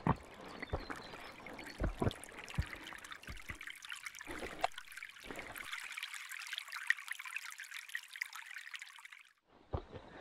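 A small mountain-side trickle of water running over rocks and splashing into a shallow pool, a steady hiss. There are a few short thumps in the first five seconds, and the sound cuts off abruptly shortly before the end.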